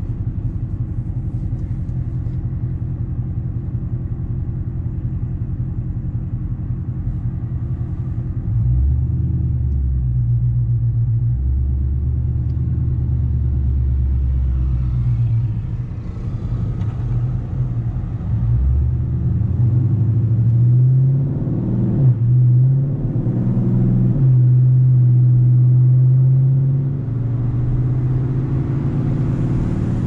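Dodge Charger's HEMI V8 on headers and straight pipes, heard from inside the cabin: a deep, steady exhaust rumble at low speed. It steps louder about eight seconds in, revs rise as the car pulls ahead around twenty seconds in, and it settles into a louder steady drone near the end.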